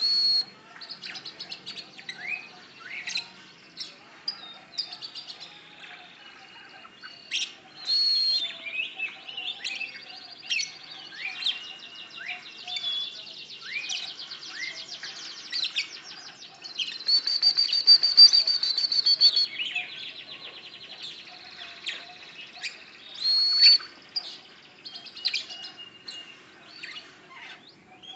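Oriental magpie-robin (kacer) singing a 'telolet' song: a varied run of sharp whistles, quick rising and falling notes and rapid trills. It rises to a long, loud, high trill about two thirds of the way through.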